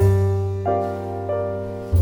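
Background music: slow piano or electric-piano chords over a sustained bass note, with new chords struck about every two-thirds of a second.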